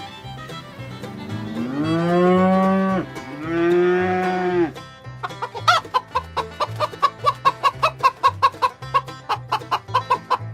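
A cow mooing twice in long calls that rise and fall in pitch, followed about halfway through by chickens clucking in a quick run of short notes. Faint backing music runs underneath.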